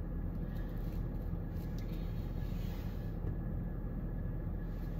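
Steady low rumble of a car's engine idling, heard from inside the cabin, with a faint steady high tone over it.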